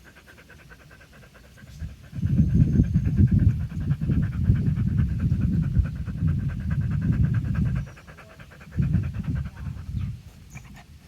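A dog panting very fast and steadily in the heat, loud quick breaths to cool itself. A loud low rumble comes in about two seconds in, stops near eight seconds and returns briefly around nine.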